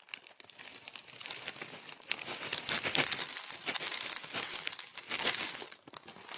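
Dense rattling and crinkling, many small clicks close together, growing louder about two seconds in and dropping away near the end. A thin, steady high tone sits over it for a couple of seconds in the middle.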